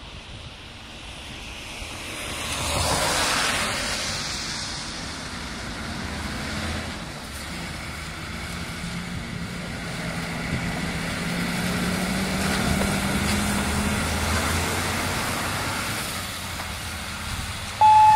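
A MAN TGM fire engine's six-cylinder diesel runs and pulls away, its engine note rising as the truck accelerates, with a swell of road noise about three seconds in. Just before the end its two-tone siren switches on loudly.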